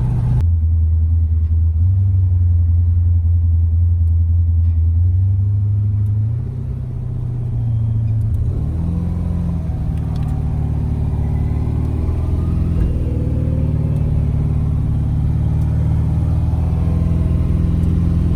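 A car's engine running steadily on the road, low and loud; about six seconds in it eases off briefly, then its pitch climbs and holds higher, as when shifting and accelerating.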